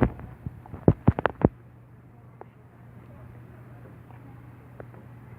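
A quick run of about five sharp taps or knocks in the first second and a half, then only a steady low hum.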